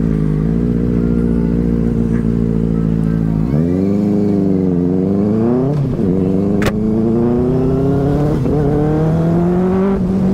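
Motorcycle engine running evenly for a few seconds, then pulling away, its pitch climbing, dipping at two gear changes and climbing again. A sharp click sounds about two thirds of the way through.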